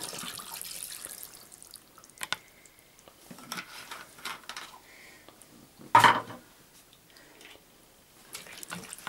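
9% table vinegar poured from a bottle onto pieces of herring in a glass bowl, a splashing hiss that tails off in the first two seconds. A few faint clicks follow, and a single short, loud thump comes about six seconds in.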